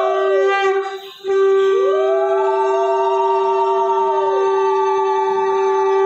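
Conch shell (shankha) blown in a ritual welcome of the goddess's idol. One long, steady note is held, alongside a second note that swoops up and then falls away, with a brief break about a second in.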